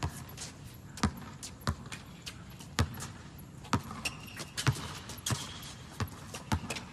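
Basketball dribbled on an outdoor hard court: a series of irregularly spaced bounces, with a brief high squeak about four seconds in.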